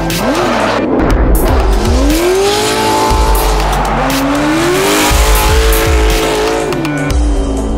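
Turbocharged Chevrolet LS7 V8 of a Formula Drift Subaru BRZ revving hard through a drift while the rear tires squeal. The engine note climbs about two seconds in and holds, dips about four seconds in, climbs and holds again, then falls near the end. Electronic music with a heavy bass beat plays underneath.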